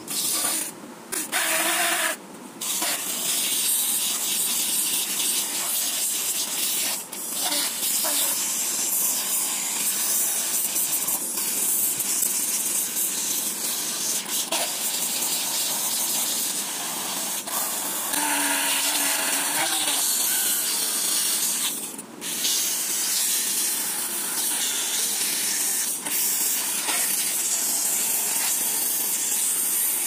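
Small 775 DC motor spinning a blue cylindrical bit held against sandpaper: a steady, high abrasive grinding hiss as the bit is worn down, with a few brief breaks where it comes off the paper.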